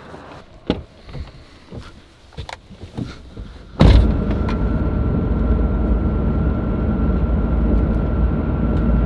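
A few scattered knocks and clicks as someone climbs into a pickup's cab. About four seconds in, this gives way abruptly to the steady road and engine noise inside a Ford F-150 pickup's cabin while driving on a highway, with a faint steady whine above it.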